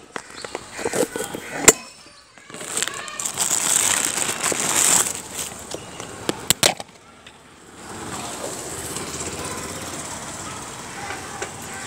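Close handling noise: a loud rustle lasting a couple of seconds, a few sharp knocks, then a steady, even background rush.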